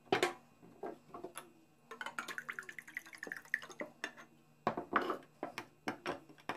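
Liquid poured from a metal can into a glass jar for about two seconds, splashing and gurgling with a pitch that creeps upward as the jar fills. Light clicks and knocks of the can and jar being handled come before and after the pour.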